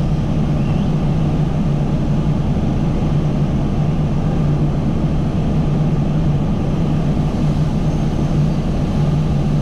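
Fire engine running steadily at pumping revs, a loud constant drone, while hose streams are worked on a large fire.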